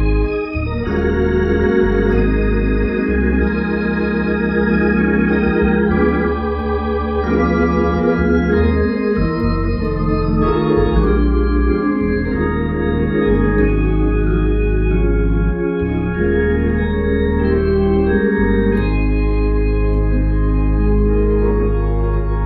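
Hammond organ playing a gospel hymn: full sustained chords over deep bass notes, the harmony changing every second or two.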